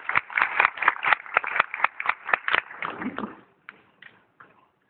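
Rapid sharp hand slaps and stomps from a slap polka dance troupe on a stage, several a second. The slapping stops about three and a half seconds in, leaving a few scattered knocks.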